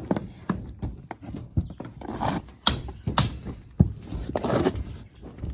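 Irregular knocks and thuds with short scrapes, from hammering and prying old metal off a mobile home roof.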